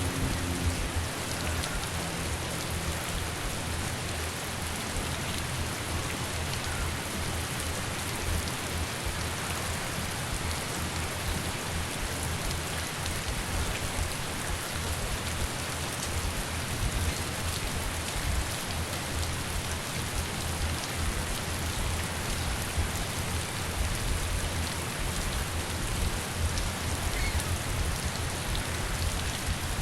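Heavy rain falling steadily, with a low, gusty rumble of wind underneath.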